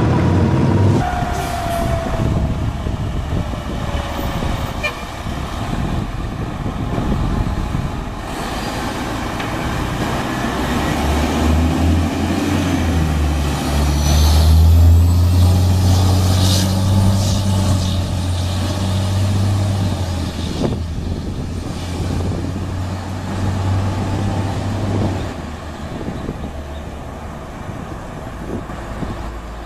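Fire trucks responding. A siren winds down in pitch during the first few seconds. Then an aerial ladder truck passes close, with a deep, drawn-out horn and engine note for about a dozen seconds in the middle, over road traffic noise.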